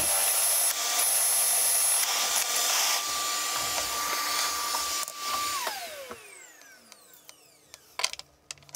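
Vacuum cleaner running with a steady whine while a cordless drill bores a hole through the wall of an electronics enclosure. About five and a half seconds in, the vacuum is switched off and its motor winds down, the whine falling in pitch over a second or so. A few light clicks follow near the end.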